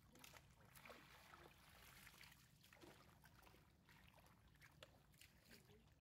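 Near silence, with faint scattered clicks and small water trickles from fish gulping at the surface of shallow, muddy pond water.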